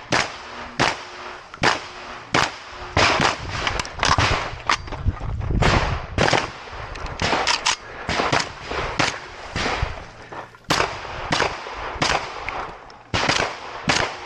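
Shotgun shots fired in quick succession, about two dozen, some in close pairs, each with a short echo.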